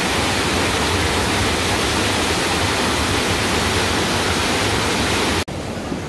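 Small mountain-stream waterfall in heavy flow, rushing steadily. About five and a half seconds in it cuts off abruptly to the quieter rush of stream water through a rock channel.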